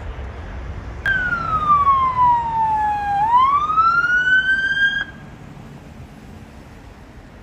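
Police van siren giving one short wail: it switches on suddenly, its pitch falls for about two seconds and climbs back up, then it cuts off abruptly, over a low road rumble.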